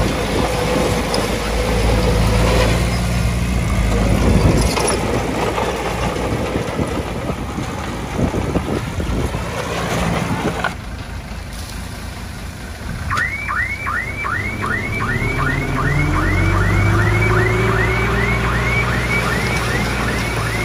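Heavy diesel earthmoving machinery running with a rattling, scraping clatter. About halfway through it eases off, then a reversing alarm starts, repeating rising chirps about two and a half times a second, while an engine's pitch climbs.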